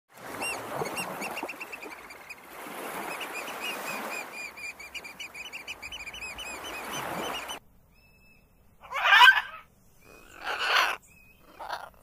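Surf washing in, swelling and fading, under a fast run of high repeated bird chirps. After an abrupt cut come short thin whistles and three loud harsh bird squawks, the first the loudest.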